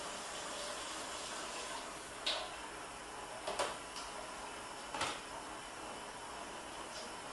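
Kitchen handling noises: several short, sharp knocks and clatters, the loudest between about two and five seconds in, over a steady hiss of room noise.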